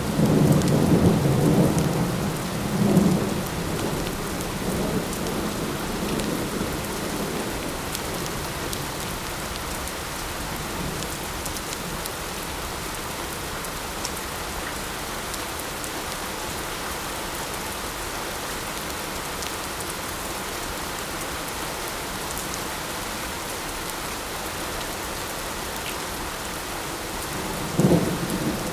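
Steady light rain hissing, with a low roll of thunder in the first few seconds that fades out, and another rumble of thunder beginning near the end.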